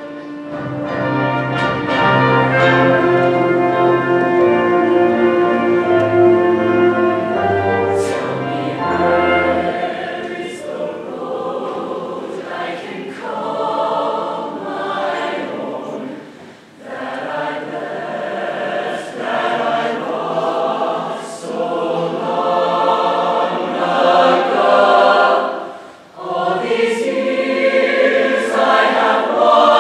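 Large mixed show choir singing in harmony, with low held notes underneath for roughly the first nine seconds. The singing dips briefly twice, between phrases.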